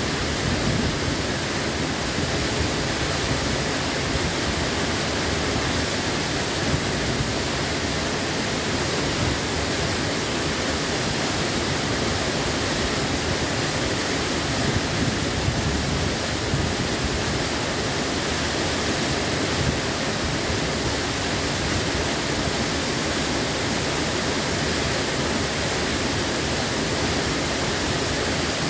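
Huibang Falls, a tall waterfall, pouring down a rock face into a pool: a loud, steady rush of falling water that never changes.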